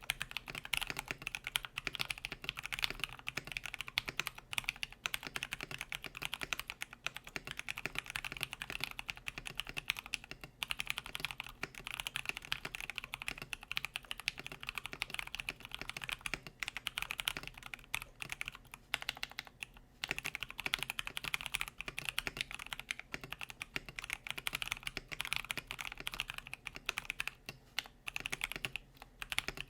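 Continuous fast typing on a KBD67 Lite R1 mechanical keyboard with lightly tactile, factory-lubed Pewter switches, polycarbonate plate and PBT keycaps: a steady stream of muted key clacks with brief pauses now and then.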